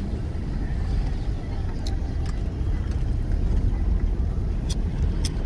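Car driving with a window open: a steady low rumble of engine, tyres and wind, with a few brief clicks.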